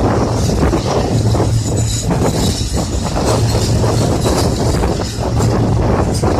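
Train running past at close range: a steady low diesel drone under repeated clacks of wheels over rail joints, with wind buffeting the microphone.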